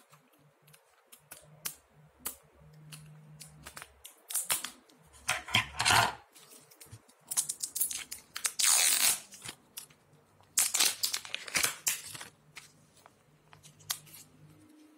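Aluminium foil wrapper of a chocolate surprise egg being cut with scissors and then torn and peeled off, crinkling in several loud bursts between sharp small clicks. Near the end the plastic capsule from inside is handled with a light click.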